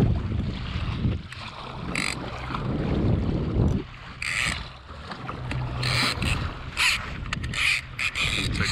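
Ocean chop slapping and splashing against the hull of a moving kayak, in repeated short splashes, with wind on the microphone.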